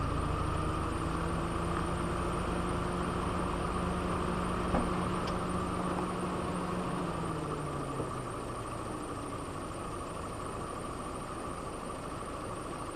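Vehicle engines running on a roadside, a steady hum with a thin high steady tone over it; a low hum drops in pitch about seven seconds in and the sound fades a little after. Two light knocks come about five and eight seconds in.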